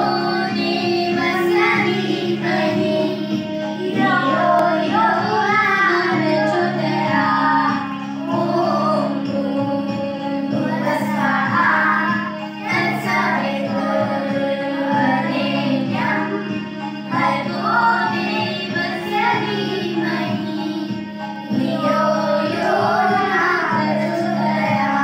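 A girl singing a devotional prayer song into a microphone over steady instrumental backing music with a sustained low drone.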